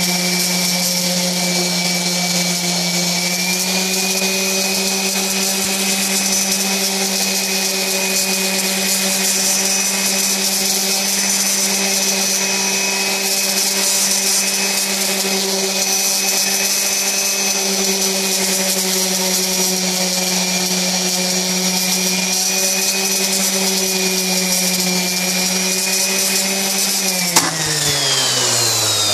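Electric palm sander running steadily, sanding and rounding over the edges of a small pine 2x4 block. It is switched off near the end and its motor winds down with a falling pitch.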